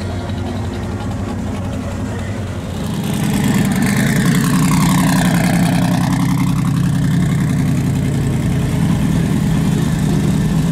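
Car engines moving off at low speed: first a Lamborghini Aventador's V12, then from about three seconds in a louder, deep, steady rumble as a Dodge Challenger drives slowly past close by.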